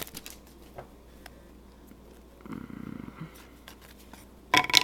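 Quiet handling of trading cards: small scattered clicks, a soft low murmur-like hum about halfway through, and a brief loud rustle of cards or wrapper near the end.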